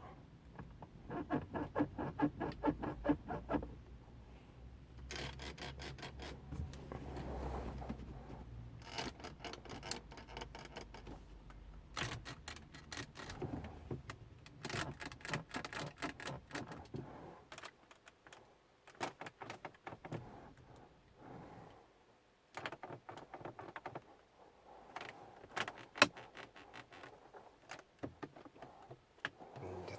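Interior trim of a Mercedes-Benz E200 (W212) creaking and crackling in repeated bursts of rapid clicks, a loud creak that the owner says comes up over potholes.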